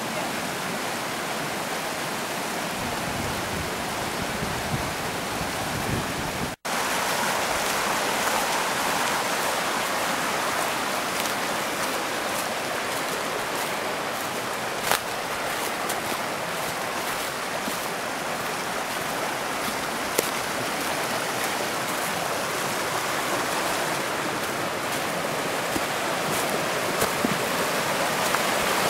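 Mountain stream rushing and splashing over rocks, a steady hiss of water that cuts out for an instant about six and a half seconds in and then comes back a little louder.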